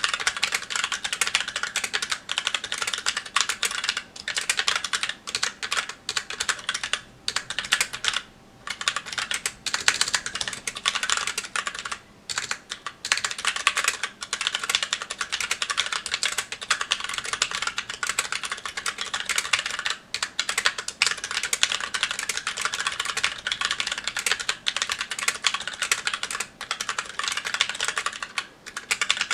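Steady, fast typing on a Magicforce 68 mechanical keyboard with stock tactile Gateron Brown switches and GMK keycaps: a dense run of keystroke clacks, broken by brief pauses about 8 and 12 seconds in.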